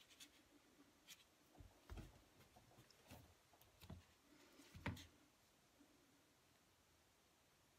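Near silence with a few faint soft knocks and rubs from sugar-paste petals being handled and set down on a foam petal pad, the clearest about five seconds in.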